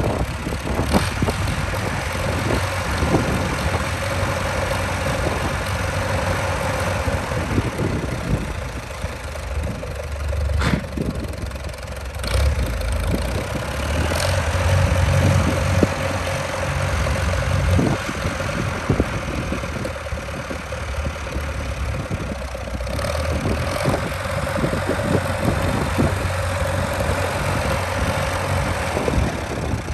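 Farmall B tractor's four-cylinder gasoline engine running at low speed with a steady, even beat as the tractor is driven slowly, getting a little louder about halfway through, with a few sharp clicks.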